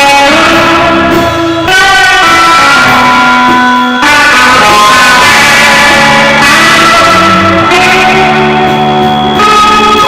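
Loud rock band recording led by electric guitars playing held, layered notes that shift to new chords every couple of seconds.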